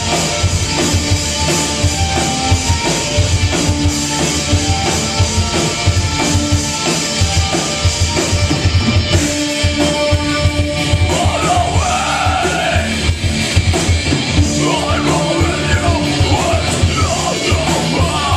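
Live rock band playing: drum kit, electric guitars, bass guitar and keyboard. A singer's voice comes in about eleven seconds in.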